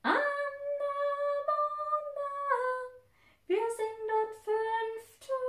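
A woman's voice singing a short melody without words, in long held notes: two phrases with a short break about three seconds in, then another held note near the end.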